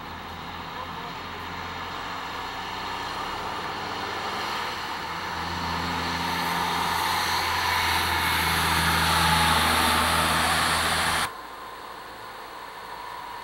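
A loaded logging truck passing on the highway: its diesel engine hum and tyre noise grow steadily louder, then cut off suddenly near the end, leaving a quieter steady rumble.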